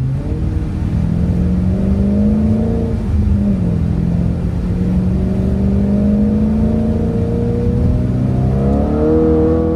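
Audi RS5's 4.2-litre V8 heard from inside the cabin while the car is driven, pulling steadily. Its pitch dips about three seconds in and climbs again near the end as it revs higher.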